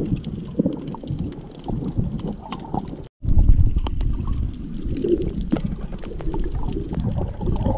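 Muffled underwater sound picked up by a submerged camera: a low rumble of moving water with scattered clicks and crackles. It cuts out completely for a moment about three seconds in.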